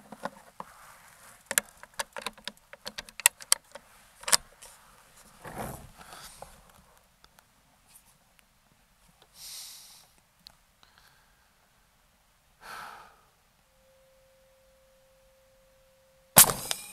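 Umarex Hammer .50 caliber PCP air rifle firing a single loud shot with a 420-grain slug near the end, a sharp report that rings on briefly. Before it come small handling clicks and a few breaths as the shooter settles behind the gun.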